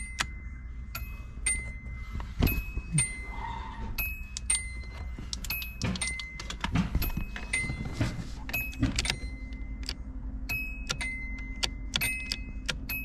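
A car's electronic warning chime pinging over and over, about twice a second, with the ignition on and the engine off. A few knocks from handling the loose instrument cluster come in between.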